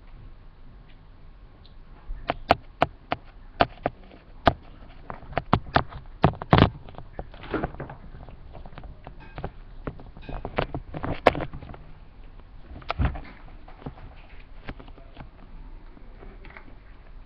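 Irregular clicks and knocks of handling noise, something rubbing and bumping right against the camera and its microphone, starting about two seconds in, thickest in the middle and dying away after about thirteen seconds.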